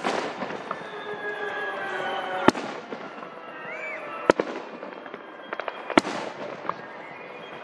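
Aerial fireworks shells bursting: four sharp bangs about two seconds apart, with a few smaller pops and crackles between them.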